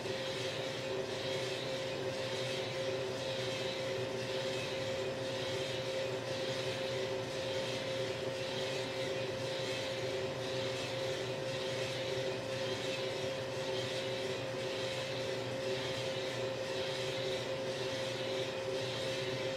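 Small drum coffee roaster running: a steady mechanical hum with two held tones over an even hiss, and a faint swish repeating about once a second as the beans tumble in the turning drum.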